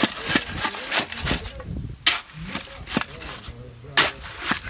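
Irregular sharp knocks and clacks of hand tools during concrete work on column forms, about seven in a few seconds. Faint voices sound in between.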